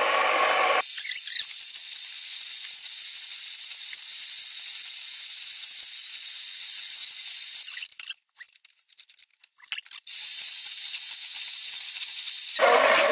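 Electric hand mixer running in a bowl of cream mixture. After about a second its sound turns thin and hissy, drops to near silence for about two seconds past the middle, and comes back full near the end.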